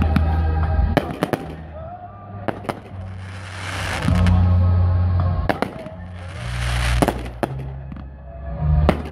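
Fireworks display: a rapid string of sharp bangs and cracks from aerial shells bursting, with a rushing hiss that swells and fades a few seconds in and again near the middle.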